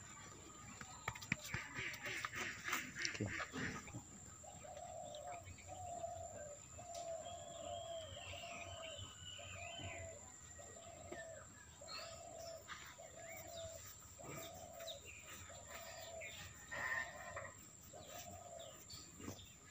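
Birds calling in the background: a short low call repeated about once a second, with a higher rising-and-falling chirp about eight seconds in. A burst of rustling and clicks comes in the first few seconds.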